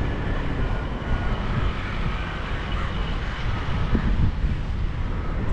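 Outdoor rumble of wind on the microphone mixed with road traffic from buses and cars, uneven and steady with no single event standing out.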